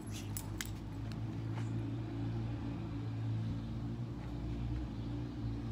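A steady low motor hum, engine-like, with a few light clicks in the first second and a half.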